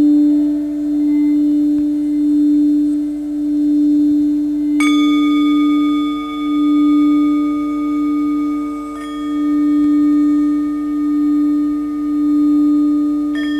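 Frosted quartz crystal singing bowl sung by a rubber-tipped wand circling its rim: one deep steady tone that swells and fades about once a second. A second instrument is struck three times, about five, nine and thirteen seconds in, each strike adding higher ringing tones over the bowl's hum.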